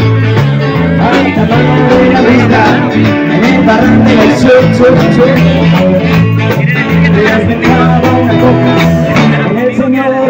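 Live band jamming on amplified electric guitars, with a bass line moving note by note underneath.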